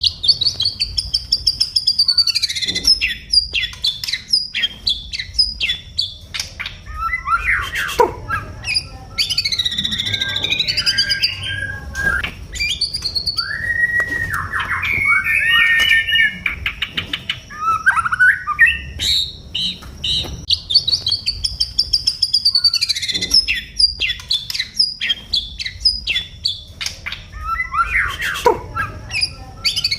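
White-rumped shama (murai batu) singing continuously in a long, varied song. It mixes loud whistled phrases that sweep up and down with rapid runs of short, sharp notes. This is the full, sustained song that keepers call 'gacor'.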